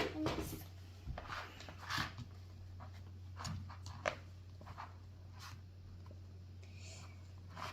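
Small toy tools digging and scraping through kinetic sand: a scattering of short, soft scrapes and taps, over a steady low hum.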